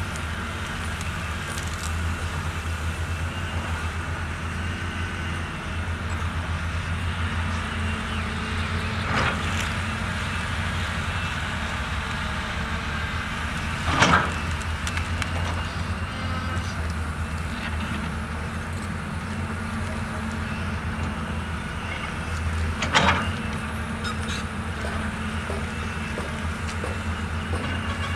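CAT 320D RR excavator's diesel engine running steadily at work, with three sharp clanks: a light one about a third of the way in, then louder ones about halfway through and again near the end.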